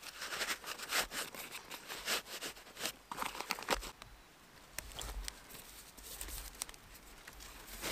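Nylon fabric rustling and crinkling as outdoor gear is handled and packed: a kitbag pouch being closed, then a waterproof poncho's drawcord pulled, with a few light clicks and scrapes.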